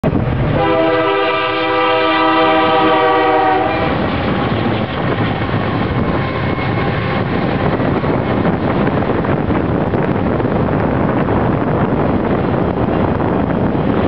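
Union Pacific diesel locomotive's air horn sounding one long blast, starting about half a second in and lasting about three seconds. Then comes the steady rumble of the locomotives and autorack freight cars rolling past.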